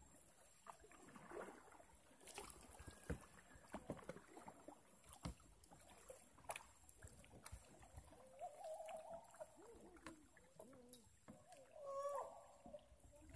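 Quiet kayak paddling on calm water: faint paddle dips and drips with scattered light clicks. Faint distant voices come in twice, about eight seconds in and again near the end.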